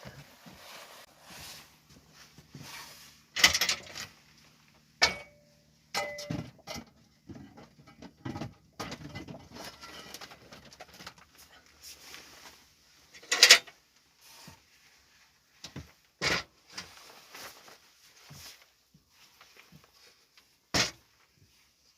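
Irregular knocks and clicks of hand work on a bird feeder being built, with five loud sharp knocks several seconds apart and quieter tapping and handling noises between them.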